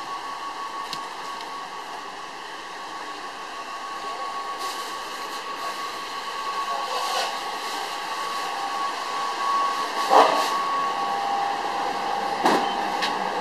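Steady hum of commercial kitchen fans and equipment, with a few short knocks and clatters in the second half.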